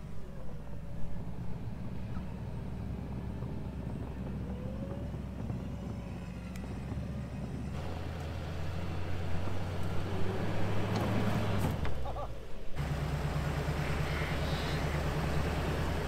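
Truck engines running slowly at low revs, a steady low drone, as a pickup is eased along on a recovery rope. The sound changes abruptly about 8 seconds in and again about 13 seconds in.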